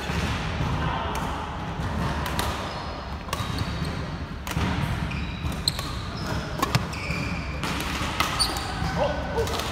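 Badminton rally: sharp racket strikes on the shuttlecock about once a second, with short high shoe squeaks on the wooden court floor, over a steady low hall rumble.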